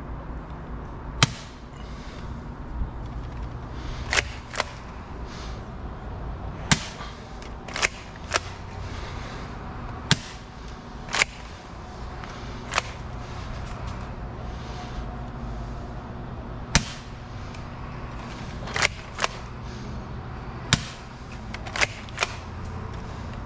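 Bug-A-Salt 3.0 salt gun firing repeatedly: about fifteen sharp snaps at irregular intervals, some in quick pairs, over a steady low background rumble.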